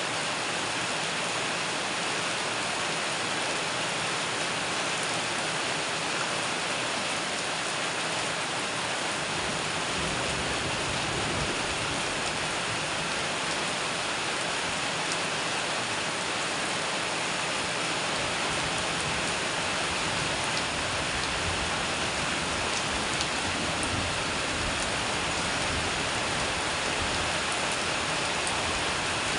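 Steady rain pattering on corrugated metal roofing as a dense, even hiss, with a deeper rumble joining about nine seconds in.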